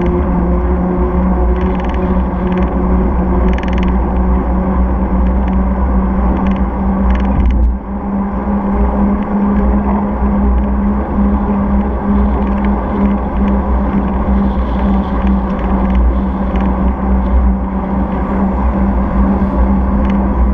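Steady rumble of wind and tyre noise on a bicycle-mounted camera riding along a tarmac street, with a steady low hum underneath. The rumble dips briefly about eight seconds in.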